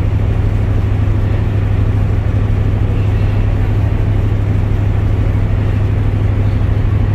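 Steady low drone of a car ferry's engines running.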